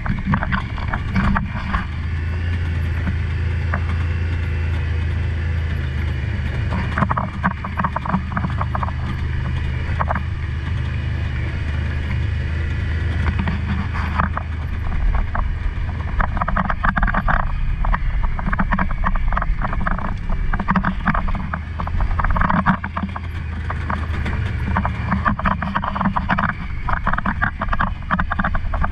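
Side-by-side UTV running along a rough gravel trail: a steady low engine drone with rattling and clatter from the rough ground, which comes and goes and is heaviest in the second half.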